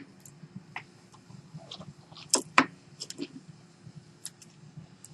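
Light clicks and taps of a phone battery and the opened phone's small parts being handled, scattered and irregular, with two louder clicks close together about halfway through.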